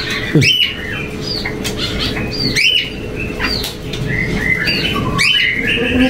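Several caged songbirds chirping and calling in many short, hooked notes that overlap, with a few brief wing flutters. A steady low hum runs underneath.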